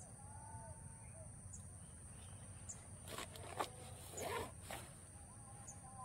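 Faint outdoor ambience with a steady high-pitched whine and a few faint high chips. About three to four and a half seconds in come a few knocks and rustles, the loudest a single sharp knock.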